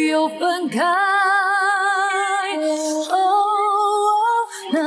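Background music: a woman singing a slow ballad without words, holding long notes with a wide vibrato. Her voice slides up into a long note about a second in and shifts to another held note near the three-second mark.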